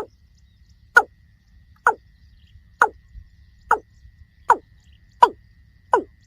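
Watercock calling: a short, falling note repeated about once a second, eight times, the notes coming slightly closer together. A faint steady high tone sits under the calls from about a second in.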